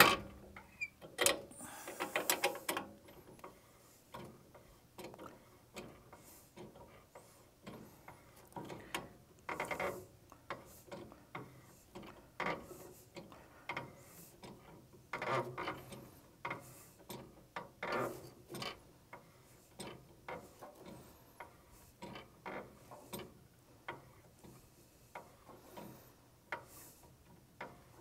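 Wrench turning a heat pump's brass refrigerant service valves and caps in short repeated strokes, metal clicking and scraping on metal, with a denser run of clicks about two seconds in.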